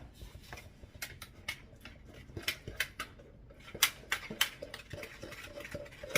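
A kitchen utensil clicking and clinking against a bowl in irregular taps while the glaze is mixed.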